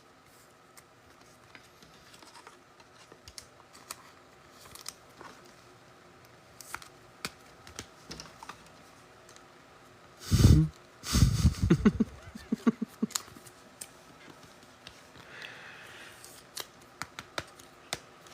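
Trading cards being handled and sorted, with many small, irregular clicks and ticks of card edges and packaging. About ten seconds in there is a short, louder, low voice-like sound lasting under two seconds.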